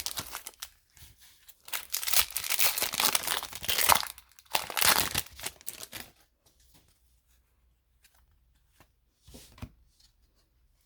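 A hockey card pack's wrapper being torn open and crinkled for about six seconds, then a few faint light taps of card handling.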